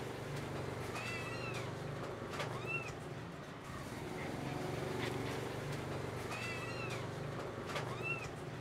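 A small animal crying in high, rising-and-falling calls: two calls about a second in and two more near the end, over a steady low hum.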